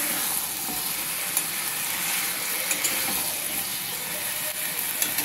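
Malabar spinach, vegetables and fish head sizzling in a metal kadai while a spatula stirs the dry mix, with a few light knocks and scrapes of the spatula against the pan.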